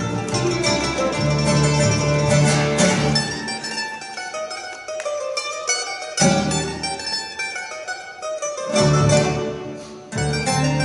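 A mandolin, an acoustic guitar and a double bass play a folk tune together, the mandolin picking quick melody notes over the guitar. The low bass line drops out for a few seconds midway, then comes back.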